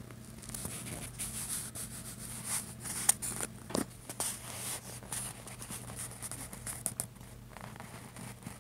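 A cat grooming itself close to the microphone: a run of short rasping, rubbing strokes on fur, with one brief falling squeak about four seconds in.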